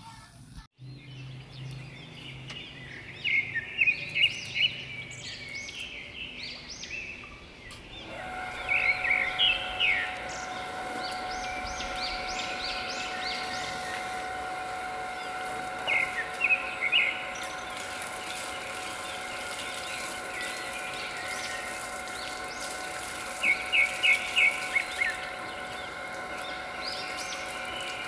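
Small birds chirping in quick clusters of short calls, four times. Under them, from about eight seconds in, a steady multi-toned hum runs on.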